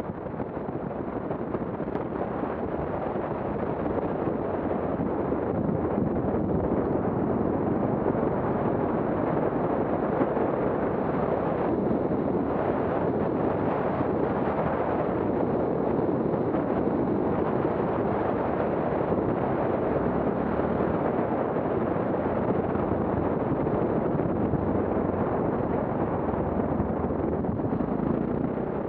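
Adventure motorcycle riding a dirt forest track: a steady rush of wind on the bike-mounted camera's microphone over the engine and tyres on gravel, building over the first few seconds and then holding.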